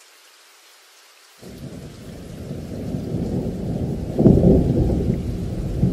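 Rain with thunder: a faint, steady rain hiss, then about a second and a half in a loud, low thunder rumble breaks in and builds, loudest about four seconds in.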